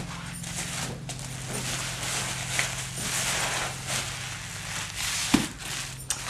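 Plastic sheeting and bubble wrap rustling and crinkling as a tightly wrapped nuno-felting roll is unrolled and the covering peeled back off the wet wool, with a single knock a little past five seconds, over a steady low hum.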